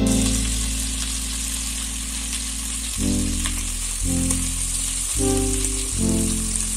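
Chicken pieces sizzling as they fry in hot oil in a pan, a steady hiss throughout. Background music chords play underneath.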